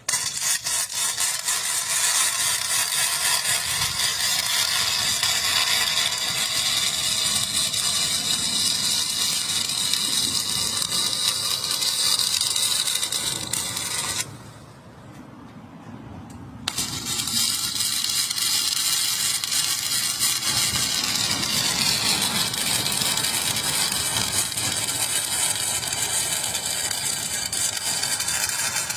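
Arc welding on a steel handrail: a continuous loud crackle that stops abruptly about halfway through for roughly two seconds, then strikes up again and runs on.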